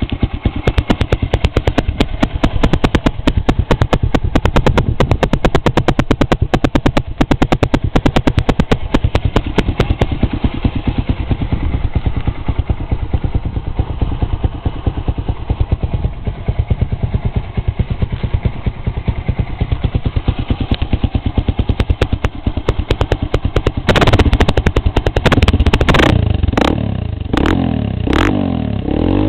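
Honda NXR Bros single-cylinder four-stroke motorcycle engine idling through an aluminium RS aftermarket exhaust, a loud, fast, even run of exhaust pulses. Near the end it is revved up and let fall back several times in quick succession.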